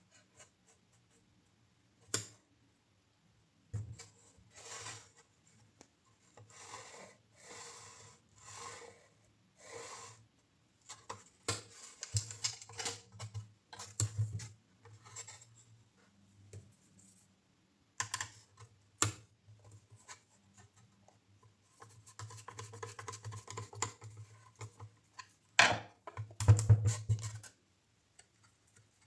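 Hand work with small wooden or hard parts: a run of short rubbing or scraping strokes, about one a second, then clusters of light clicks and taps, with a couple of louder knocks near the end.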